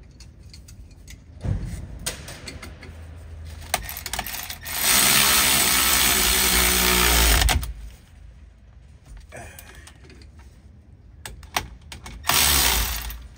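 Cordless power tool running in two bursts, a long one of about three seconds in the middle and a shorter one near the end, driving in bolts on the rear brake assembly. A few short knocks come between the bursts.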